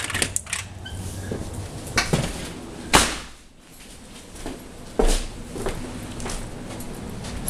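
Door knocks and handling thumps from walking through a house: a sharp knock about three seconds in, after which the steady background noise drops away, and another loud knock about five seconds in, over a low hum.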